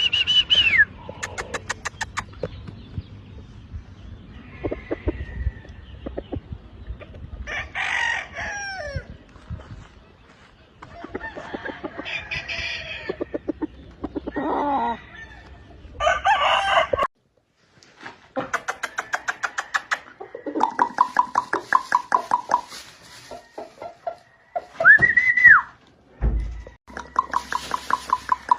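Roosters crowing several times, with hens clucking in rapid runs of short notes between the crows.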